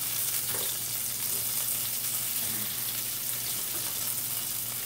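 Breaded chicken pieces sizzling in shallow hot oil in a frying pan, a steady hiss, with a few faint clicks of metal tongs moving the pieces in the pan.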